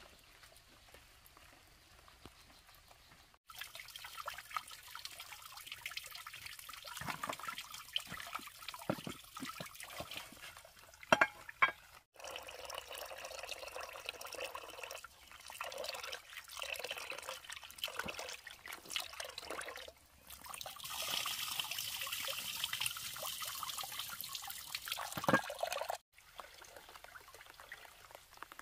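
Water trickling and splashing, with scattered sharp knocks, in stretches that cut off abruptly.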